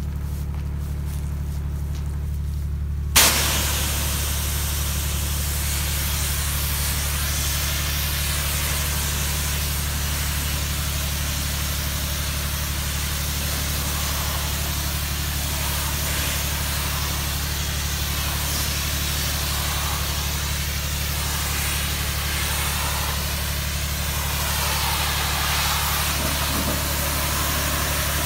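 Pressure washer engine running steadily. About three seconds in the wand's trigger opens with a sudden burst, and a steady hiss of spray on vinyl siding follows, the low-pressure spray of a soft wash.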